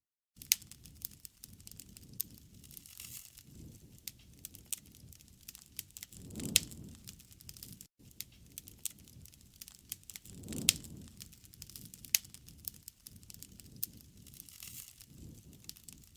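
Wood fire crackling: dense sharp pops and snaps over a low rushing of flame, which swells louder twice, about six and a half and ten and a half seconds in.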